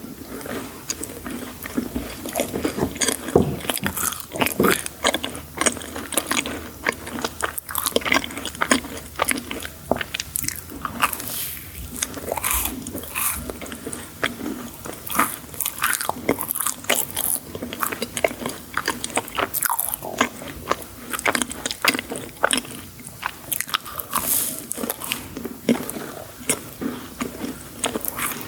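Close-miked eating of sweets: repeated crisp crunching bites and chewing, with many small cracks and crackles.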